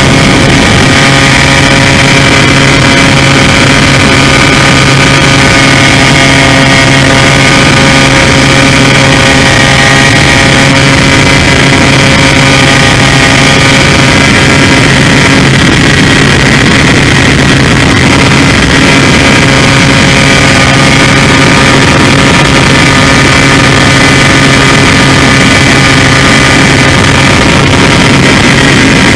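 Multiplex EasyStar RC plane's electric motor and pusher propeller running at steady throttle in flight, heard through the camera mounted on the plane: a loud hum that holds one pitch throughout.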